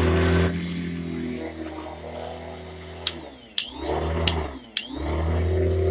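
A Bissell Lift-Off upright vacuum's motor running with a steady hum. About three seconds in, several sharp clicks come, and the motor twice spins down and back up before running steadily again. This erratic cutting out and coming back goes with a switch that the owner says no longer works.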